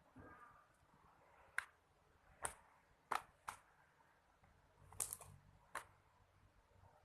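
Slime being pressed and stretched, giving about six sharp, short clicks and pops at irregular intervals as air pockets in it burst.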